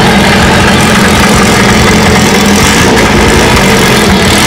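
VW Beetle's air-cooled flat-four running steadily at low revs through an EMPI stinger exhaust.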